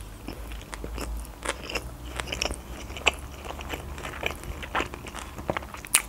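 A person chewing a mouthful of sushi roll, with irregular small clicks and wet mouth sounds throughout.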